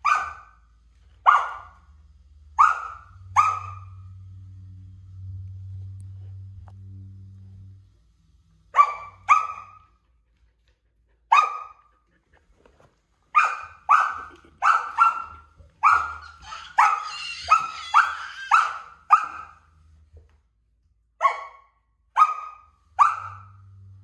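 Samoyed puppy barking at a stool being pushed around: short, sharp, high-pitched barks in bursts, with a pause of several seconds early on and a quick run of barks in the middle.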